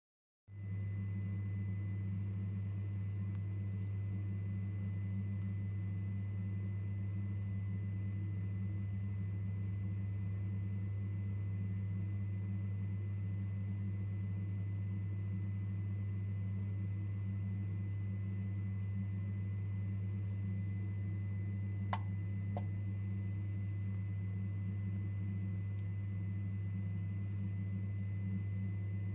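Nest Heat Link heating receiver giving off a steady low electrical hum with a thin high whine above it, the sound of the failing, non-working unit. Two light clicks about three-quarters of the way through.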